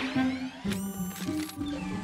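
Cartoon background music with synthesized sound effects: rising electronic glides at the start and a brief bright shimmering effect about a third of the way in.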